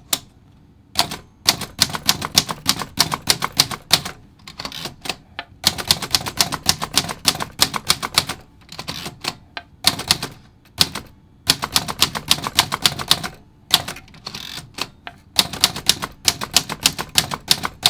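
A 1923 manual portable typewriter being typed on in capitals: quick runs of sharp typebar strikes in bursts of a second or two, with short pauses between them.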